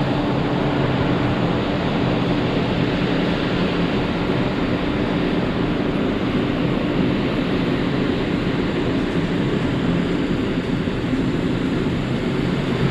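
Steady hum and rushing noise of the car ferry Sunflower Gold under way, heard on its open deck: ship machinery giving a low, even drone under a constant rush of air and sea.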